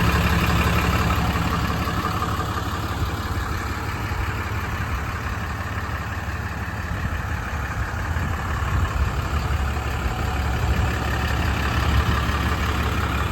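6.7 L Cummins turbo-diesel inline-six of a 2012 Ram 5500 idling steadily.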